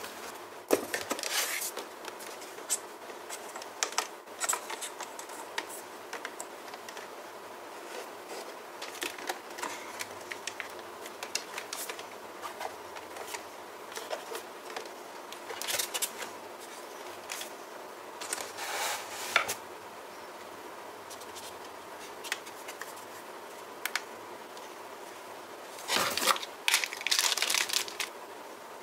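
Packaging being handled by hand during a drone unboxing: intermittent rustling and crinkling with light clicks and scrapes, busiest near the end.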